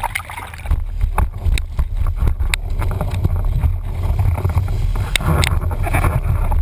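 Wind buffeting a camera microphone on a windsurf boom while the board planes fast. A steady low rumble is broken by frequent slaps and splashes of spray and chop, with a sharper splash about five seconds in.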